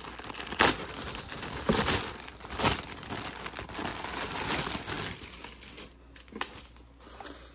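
Packaging being crinkled and torn open around a folded clothing set, with several louder crackles in the first three seconds, then quieter rustling.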